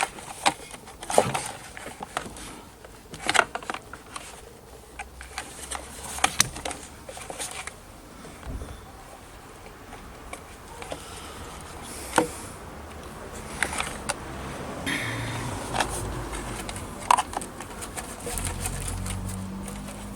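Scattered clicks, taps and knocks of parts and wires being handled and fitted into the Kenwood Chef mixer's housing, with a low rumble in the last few seconds.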